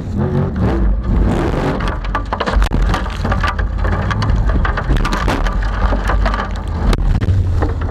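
Formula offroad buggy's engine running hard while thrown dirt and gravel pelt its body panels in a dense, irregular patter of sharp ticks and clatters. The engine comes through more clearly again near the end.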